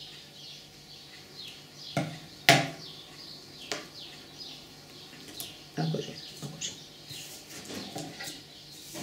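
Metal scissors handled and set down on a wooden table, with a sharp clatter about two and a half seconds in and a few lighter knocks after it. Small birds chirp faintly throughout.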